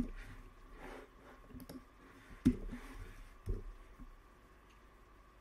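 A handful of separate computer keyboard key clicks as a terminal command is typed and entered, the loudest at the start and about two and a half and three and a half seconds in, over a faint steady hum.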